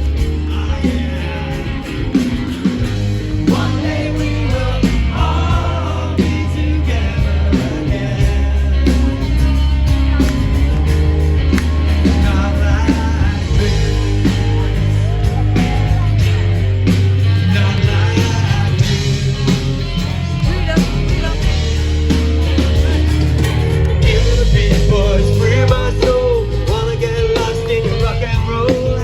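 Live rock band playing with bass guitar, electric guitar and drum kit, and a voice singing over it.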